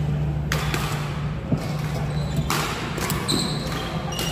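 Badminton rally: rackets striking the shuttlecock, one sharp hit about a second and a half in, with footsteps thudding and shoes squeaking on the court floor, over a low steady hum.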